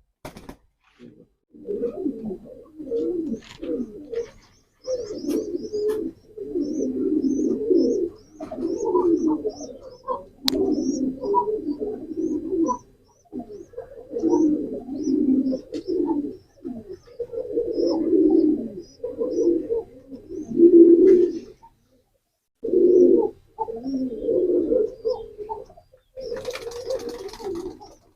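Pigeons cooing in repeated low phrases, one after another with short pauses, and a faint run of high chirps behind them for part of the time.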